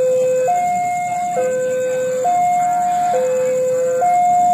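Railway level-crossing warning siren sounding for an approaching train, with the barriers down. It is an electronic two-tone signal that alternates steadily between a lower and a higher pitch, each tone held just under a second.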